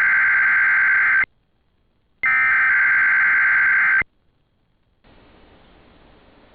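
Two bursts of NOAA Weather Radio SAME digital alert-header data, a loud, steady, buzzy warble about 1.8 s long each, about a second apart, sent as the start of the weekly test of the warning alarm system. Faint steady radio hiss follows from about five seconds in.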